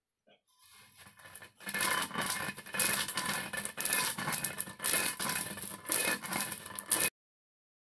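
Stone roller of a silbatta crushing black soybeans on the flat grinding stone: repeated crunching, scraping strokes of stone over the beans. The beans are being cracked flat so they soak and grind easily. It starts about two seconds in and stops abruptly near the end.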